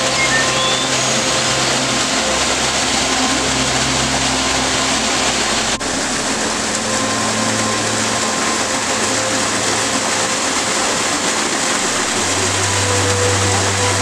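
Small waterfall splashing into a pool: a steady, even rush of falling water. A soft, sustained musical drone sits underneath it.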